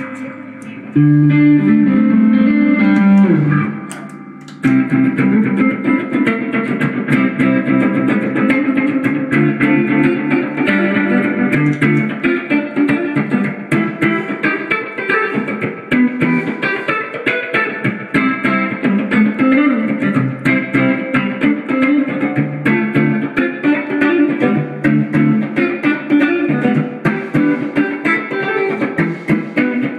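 Guitar playing a busy line of quickly picked notes, with a brief drop about four seconds in before the playing picks up again.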